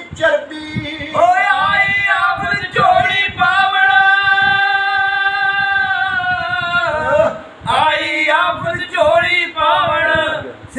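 Unaccompanied Punjabi kavishari singing by men's voices, with a long held note in the middle of the phrase and quicker sung lines either side.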